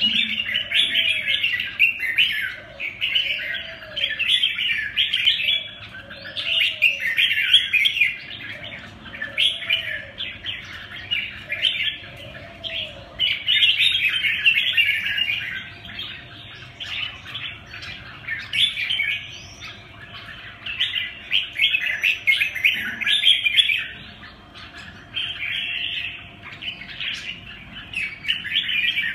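Several caged red-whiskered bulbuls singing at once, in overlapping phrases of bright, rapid chirps with short gaps between them.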